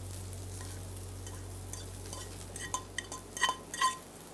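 A fork scraping and tapping freshly scrambled eggs out of a frying pan onto a plate. In the second half there are several sharp metal clinks with a brief ring. A low steady hum beneath fades out about two seconds in.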